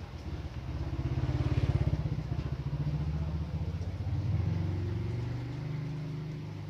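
A motor vehicle engine running nearby, growing louder about a second and a half in, swelling again around four seconds, then fading.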